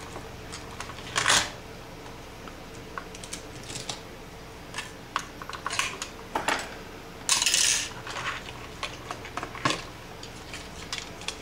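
Small plastic parts and tools of a game trail camera clicking and clattering as it is taken apart by hand, with a louder knock about a second in and a longer scraping rustle near the middle.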